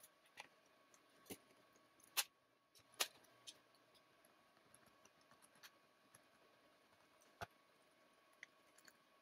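Small, irregular clicks and ticks of a screwdriver driving the bottom-cover screws of a Dell Latitude laptop, with the cover clicking into place; about eight clicks, the two loudest about two and three seconds in.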